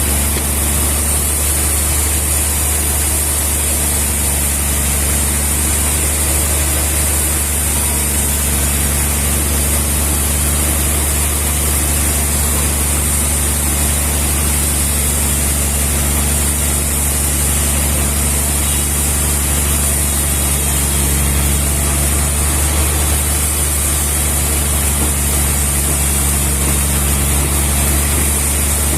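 Sawmill machinery running steadily: a constant low engine-like hum with a few fixed low tones and a hiss above. It holds unchanged with no cuts or knocks.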